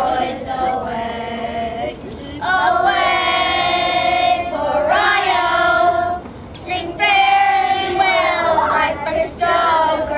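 A group of high voices, children's among them, singing together in long held notes, with brief breaths between phrases.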